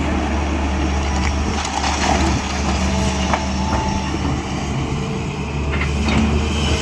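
Diesel engine of a SANY SY365H long-boom excavator running steadily, with a few sharp clicks and clanks from the working machine.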